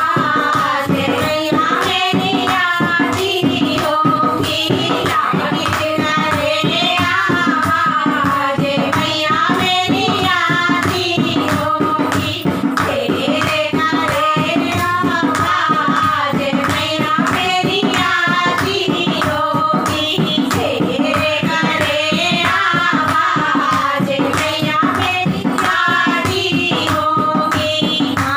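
Three women singing a Hindi devotional folk song to the Mother Goddess together, keeping time with steady hand claps.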